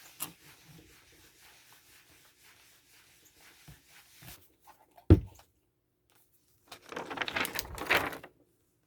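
Hand-handling noise at a work surface. There is faint scratching and rubbing, then a single thump about five seconds in, and a burst of crinkly rustling near the end.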